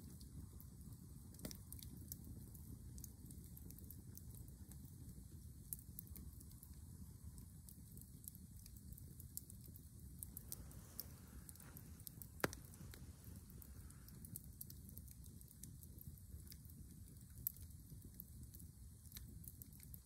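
Log campfire crackling faintly, with scattered sharp pops; the sharpest come about midway and again near the end.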